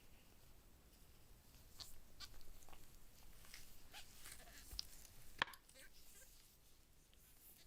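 Faint handling noises: scattered soft clicks and rustles, with one sharper click about five and a half seconds in.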